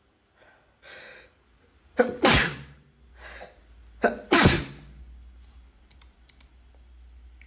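A person sneezing twice, about two seconds apart, each sneeze preceded by an audible intake of breath.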